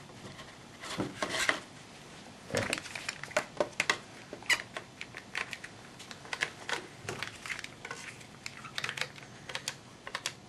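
Irwin Quick-Grip one-handed bar clamps being squeezed down on a wooden glue-up: irregular ratcheting clicks and squeaks from the trigger handles.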